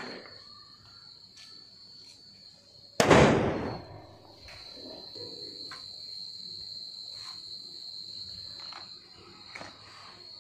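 One loud firecracker bang about three seconds in, fading over about a second, after a small pop right at the start. Crickets chirp steadily throughout.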